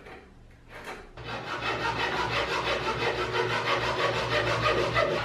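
Hacksaw cutting a timber strip held in a wooden mitre box: rapid back-and-forth strokes of the blade rasping through the wood, starting about a second in.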